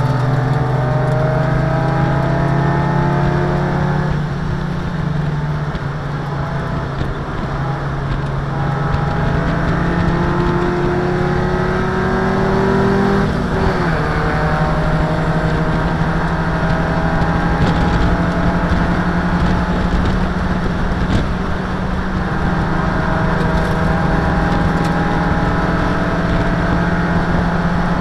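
Race car engine heard from inside the cabin, running hard under load. Its pitch climbs slowly and drops sharply once about 13 seconds in, over steady road and wind noise.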